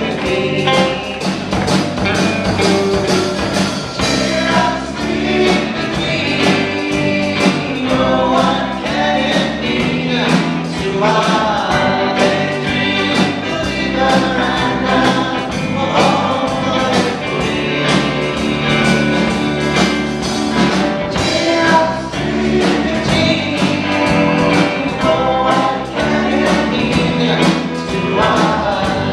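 Live band playing a song with vocals: electric guitars and drums under amplified singing.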